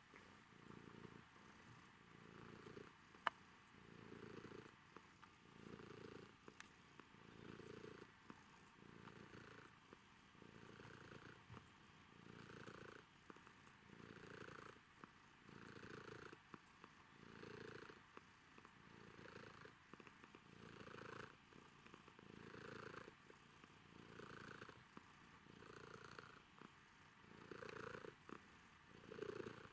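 Domestic cat purring steadily while being stroked, the purr swelling and fading with each breath about every second and a half. A single sharp click about three seconds in.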